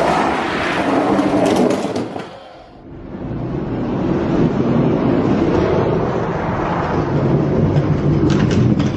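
Toy die-cast monster trucks rolling fast down a plastic drag-race track, a steady rumble of wheels on plastic. A few sharp clicks come from the trucks knocking about a second and a half in and again near the end. The rumble dies away briefly before three seconds, then starts up again.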